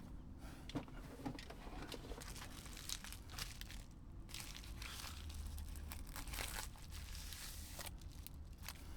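Handling noise from working on a Blu-ray remote control: irregular rustling with scattered small clicks and taps, over a steady low hum.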